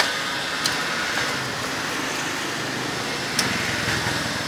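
Steady street traffic noise, with a few sharp clinks of a ladle against the pot and bowls.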